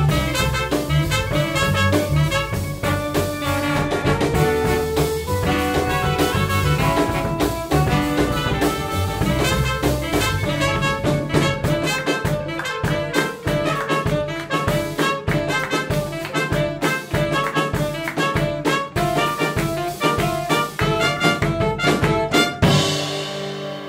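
Jazz large ensemble playing live: trumpets, trombones and saxophones lead over guitar, piano, acoustic bass and drums, with steady drum hits. Near the end the band hits one loud accented chord with a cymbal crash that rings and fades.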